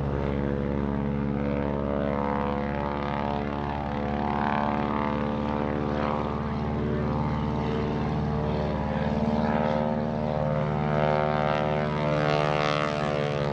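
A 1940 Stearman PT-17 biplane's radial engine and propeller running steadily in flight, with a droning pitch that drifts slightly up and down as the plane moves across the sky.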